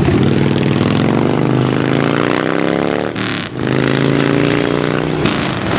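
A motor vehicle's engine accelerating through the gears: its pitch climbs for about three seconds, breaks off at a gear change, then climbs again. Beneath it, loaded freight hopper cars roll past over the crossing.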